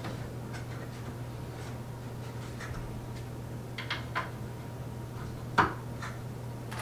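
Plywood brace and clamp being handled against the bed frame: a few light clicks and taps, with one sharper click near the end, over a steady low hum.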